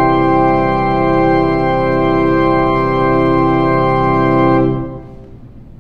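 Organ holding the final chord of the closing voluntary after the dismissal, released about five seconds in, with the room's echo dying away after it.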